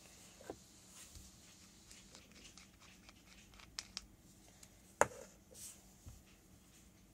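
Small metal clicks and scratchy ticks from an Aspire vape tank being unscrewed from its battery mod and taken apart by hand, with one sharper click about five seconds in.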